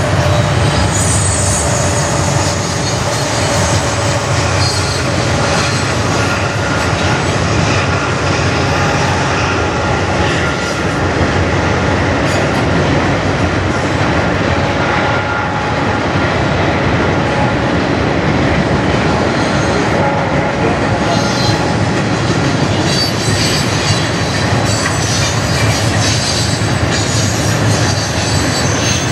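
Freight cars of a Norfolk Southern manifest train rolling past: a steady rumble of steel wheels on the rails, with thin wheel squeals coming and going, more of them near the end.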